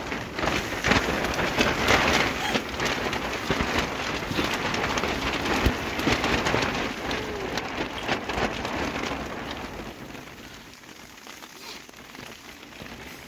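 Rain falling on a tent's fabric, heard from inside the tent: a dense spatter of drops that grows fainter about ten seconds in.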